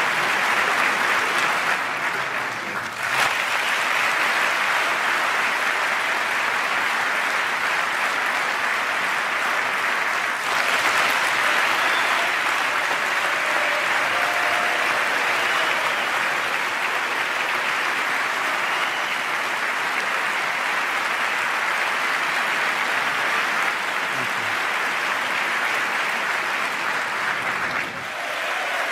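Large crowd applauding, a steady dense clapping. There are abrupt jumps about three seconds in and about ten seconds in, where separate stretches of applause are cut together.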